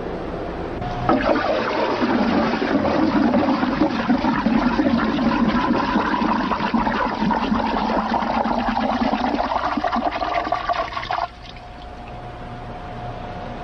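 Water rushing and swirling, with a gurgling note that sinks and rises in pitch. It cuts off suddenly about eleven seconds in, leaving a quieter hiss with one steady tone.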